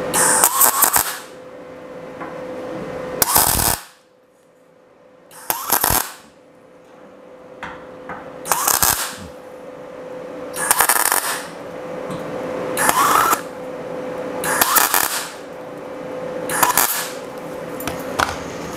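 MIG welder laying short tack welds of 6 mm round bar onto sheet-steel wheel-arch edge: about eight brief crackling bursts, roughly every two seconds, over a steady hum.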